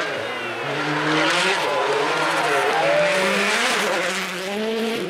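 Rally car's engine revving hard as it comes through the bend, the pitch rising and falling repeatedly with throttle and gear changes, loudest through the middle.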